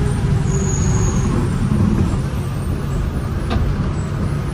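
A KSRTC Sarige bus running on the road, its diesel engine and road noise making a steady low rumble. A brief high whine comes in the first second, and there is a sharp click near the end.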